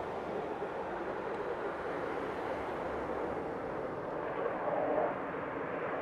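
Distant jet engine noise from a four-ship formation of fighter jets flying overhead, a steady rushing roar that swells slightly about two-thirds of the way through.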